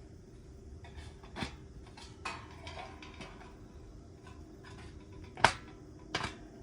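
Light clinks and knocks of thin metal parts being handled: about four sharp knocks with a short ring, the loudest about five and a half seconds in.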